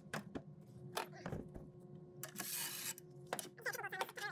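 Light clicks and knocks of a cordless impact driver and gloved hands handling the floor-panel bolts, with a brief rustling hiss about two seconds in.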